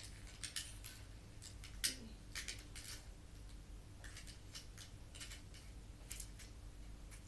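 Light, irregular metallic clicks and scrapes of a steel tape measure's blade and case being handled and worked during a repair.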